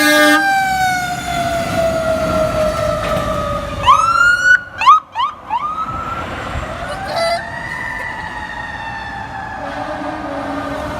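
Fire truck electronic siren passing on an emergency run: a wail sliding slowly down in pitch, then a quick run of short rising yelps about four to five and a half seconds in, the loudest part, before it winds back up into a slowly falling wail. A brief steady horn note sounds at the very start.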